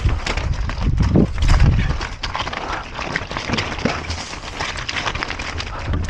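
Mountain bike clattering over a rough, rocky trail: a rapid, irregular run of knocks and rattles from tyres and frame striking rocks, over a steady low rumble.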